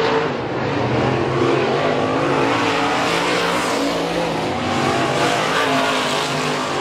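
Dirt-track race car engines running loud on the track, swelling and easing as cars go by, with a late model race car passing close near the end.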